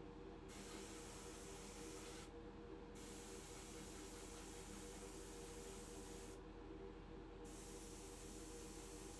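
Spray gun misting polyurethane gloss varnish onto a model's painted body, in three separate hissing bursts over a steady low hum.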